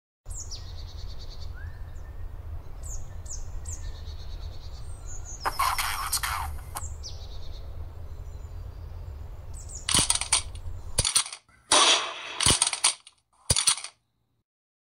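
Outdoor ambience of birds chirping over a low rumble, with a burst of noise lasting about a second midway, then from about ten seconds in five gunshot sound effects, each a sharp crack with a short tail.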